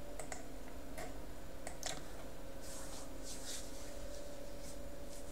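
A few sharp computer-mouse clicks in the first two seconds, then a few soft hissy puffs over a faint steady hum.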